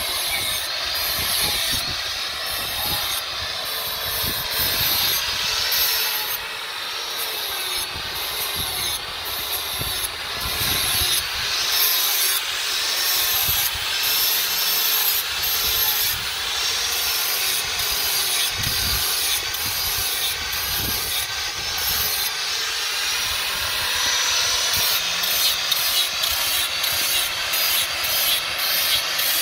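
Electric angle grinder running with its abrasive disc grinding the edge of a steel cleaver blade: a steady grinding rasp with a whine that wavers up and down in pitch as the disc is pressed on and eased off the steel.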